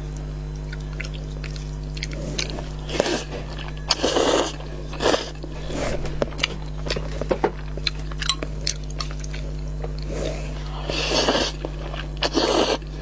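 A person eating noodles up close: wet chewing and mouth sounds, with short noisy slurps of noodles a few times, the longest near the end. A steady low hum runs underneath.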